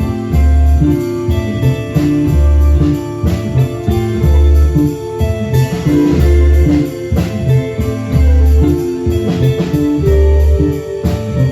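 A band playing an instrumental passage: guitar over a heavy bass line that returns about every two seconds, with light percussion.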